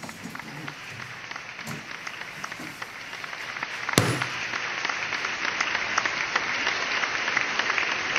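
Applause from many people clapping, swelling steadily louder, with one sharp click about four seconds in.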